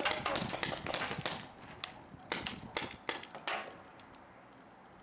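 Paintball markers firing in quick strings of sharp pops, which thin out and stop after about three and a half seconds.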